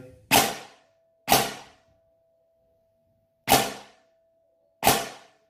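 Krytac SPR-M airsoft electric rifle firing four single shots on semi-automatic, a sharp short shot each time the trigger is pulled, spaced irregularly one to two seconds apart, as the Gate Aster optical MOSFET cycles the gearbox once per pull.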